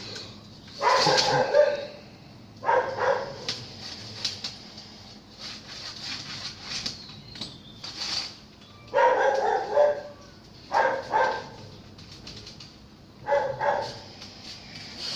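Dog barking in five short bouts, two in the first few seconds and three in the second half.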